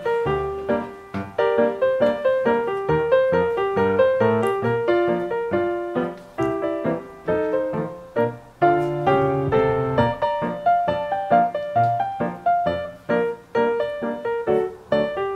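Background piano music: a steady, even run of struck notes, each fading before the next.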